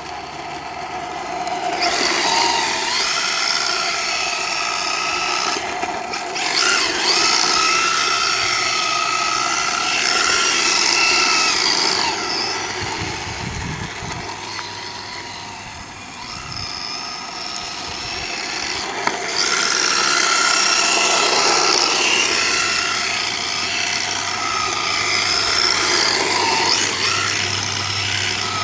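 1/10-scale electric RC drift car's motor and drivetrain whining, the pitch rising and falling with bursts of throttle as it drifts, over the hiss of its tyres sliding on asphalt. It runs in two long loud spells with a quieter stretch in the middle.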